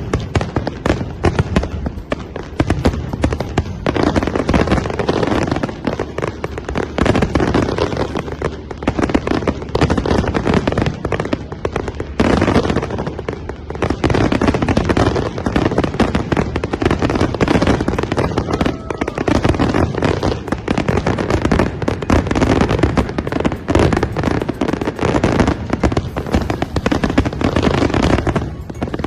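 Fireworks display going off continuously: rapid, dense crackling and bangs with no pause.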